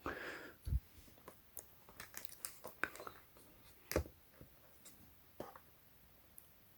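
Faint handling noise of a clip-on microphone and camera rig being fiddled with: scattered small clicks and taps. A sharper knock comes about four seconds in.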